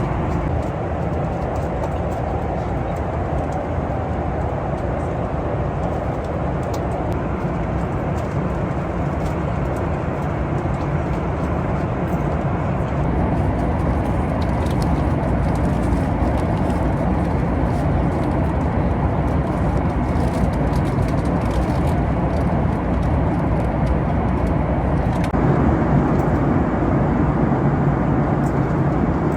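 Steady cabin noise of a Boeing 737-9 MAX airliner in flight: a dull, even rush of airflow and engine noise. Its tone shifts slightly about a third of the way in and again near the end.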